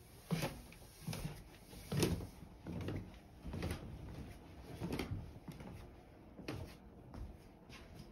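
Footsteps going down a wooden staircase: a steady series of dull thuds, about one step every 0.8 seconds, fading a little toward the end.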